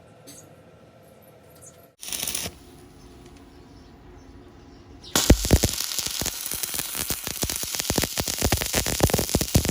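Stick welding arc crackling densely and irregularly once it is struck, about five seconds in. A short loud burst comes about two seconds in, followed by a softer hiss.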